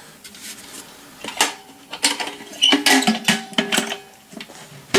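Metal clinks and clanks from a WWII German gas mask canister being handled, its lid knocking against the ribbed canister body. The knocks start about a second in and each leaves a short ringing tone. The loudest clank comes at the very end.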